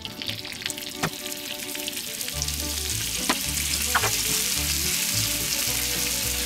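Bacon-wrapped fish fingers sizzling as they are laid one after another onto a hot, wood-fired steel fire plate, the sizzle building as more go down, with a few light clicks as pieces are set on the plate.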